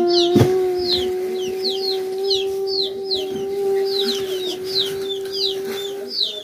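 Chicks peeping: short, falling, high chirps repeated a few times a second, over a single long steady tone that stops just before the end.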